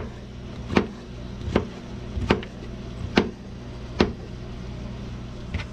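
Chef's knife slicing porcini (king bolete) mushrooms on a plastic cutting board, the blade knocking the board six times, a little under a second apart.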